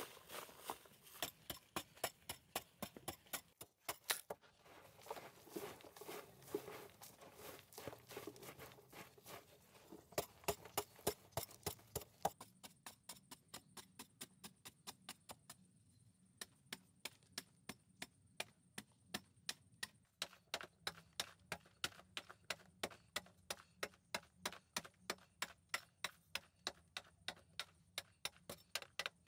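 Hand digging tool chopping into dry, sandy earth in a steady rhythm of sharp strikes, about two to three a second.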